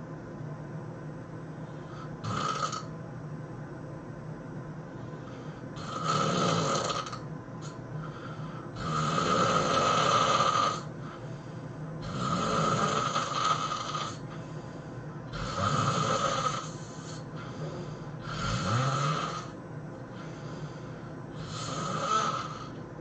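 A sleeping person snoring heavily, one snore roughly every three seconds, about seven in all, each lasting one to two seconds. A steady low hum runs underneath.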